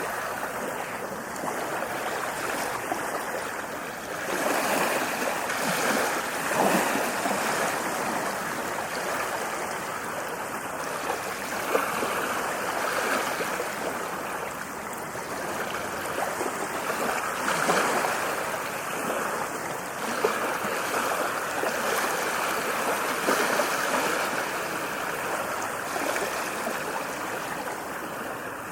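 Ocean waves breaking on a beach: a steady wash of surf that swells every few seconds as each wave comes in.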